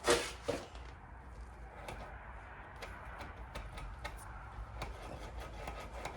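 Short hiss of penetrating oil sprayed from an aerosol can into a stiff motorcycle clutch cable, with a second brief spray about half a second later; then faint scattered clicks and light knocks as the cable is worked by hand.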